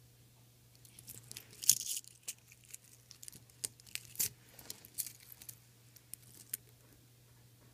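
Stainless steel watch bracelet links clinking and jingling in irregular light clicks as the watch is handled, the loudest cluster about two seconds in, over a faint steady low hum.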